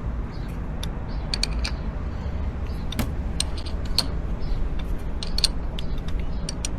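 Light metallic clicks and clinks at irregular intervals, from hand tools and small metal parts being handled during a motorcycle repair, over a steady low hum.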